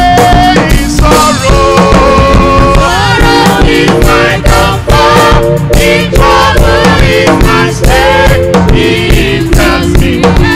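Live gospel praise music: a singing lead voice and a choir over a band with a drum kit and held keyboard chords, loud and continuous.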